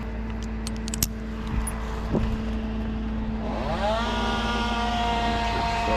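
A steady engine drone with a few sharp clicks about a second in. About three and a half seconds in, a chainsaw revs up and holds at high revs.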